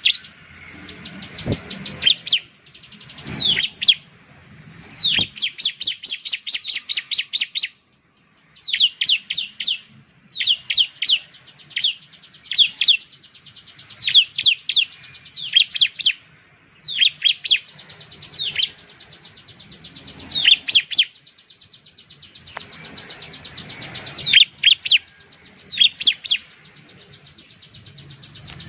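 Bar-winged prinia (ciblek) singing: rapid runs of short, evenly repeated high notes mixed with sharp downward-sweeping notes, broken off abruptly once near the middle.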